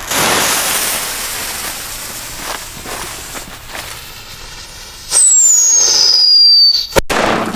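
A hiss as the fuse is lit with a jet-flame lighter. Then a whistling banger firecracker whistles for about a second and a half, its pitch falling steadily, and ends in a sharp bang near the end.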